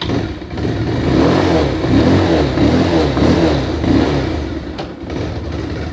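Bajaj Pulsar 220's single-cylinder engine running just after starting, revved up and down unevenly.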